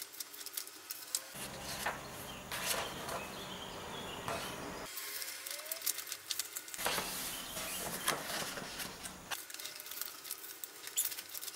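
Paper pages of a thick handbound book being leafed through and turned by hand: a run of short crisp paper rustles and flicks. A low background hum comes and goes in stretches of a few seconds.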